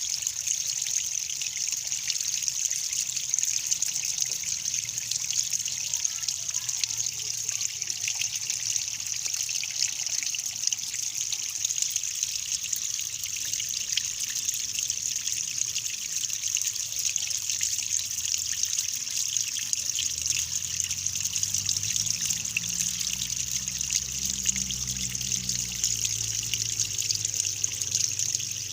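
Water trickling steadily, a continuous high hiss.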